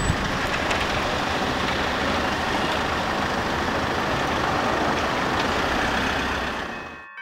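Steady city street traffic noise, the hum of car engines at a road crossing, fading out near the end.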